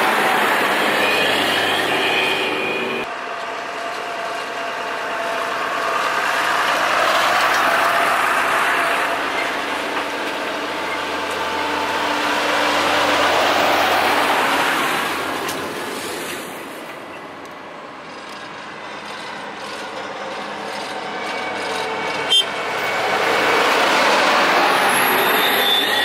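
Heavy farm machinery driving past one after another, the engine noise swelling and fading as each machine goes by. A single sharp click sounds near the end.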